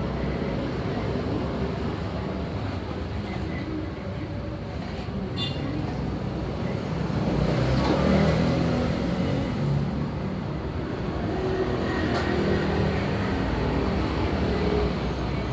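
Steady rumble of passing road traffic, swelling slightly about halfway through, with two brief sharp clicks.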